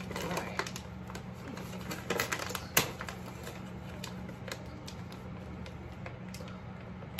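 Plastic dog-treat pouch crinkling and crackling in short clusters of sharp clicks as it is handled and opened, with one louder crack about three seconds in. A low steady hum runs beneath.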